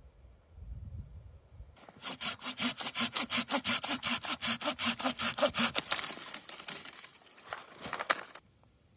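Hand saw cutting through a stick of wood, quick even strokes about five a second that turn ragged near the end and stop suddenly as the cut finishes.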